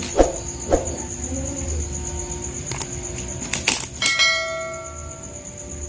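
Subscribe-button animation sound effect: a few mouse clicks, then a bell ding about four seconds in that rings out and fades over a second or so.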